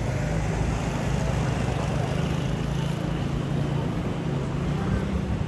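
A motor vehicle's steady low hum over city street noise.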